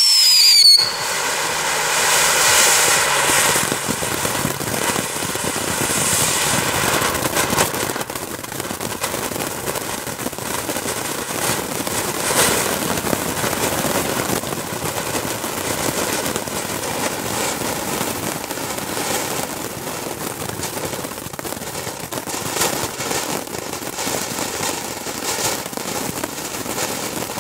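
ARS 'Nit de Sant Joan' fountain battery burning: a steady rushing hiss of spraying sparks with crackling. It opens with a short falling whistle and settles a little quieter after about eight seconds.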